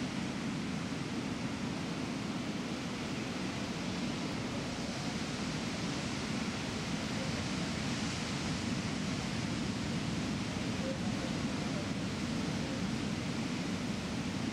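Steady outdoor ambient noise: an even rushing hiss that holds at one level throughout, with no distinct events.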